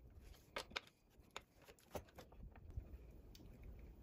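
Faint scattered clicks and small handling noises from a T-handle hex key turning the crank bolt, tightening it down to press the crank arm onto the bottom-bracket spindle.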